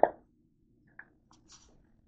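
Handling noise: a short sharp knock at the start, then a few faint clicks and rustles as fabric and a zippered bag are moved about.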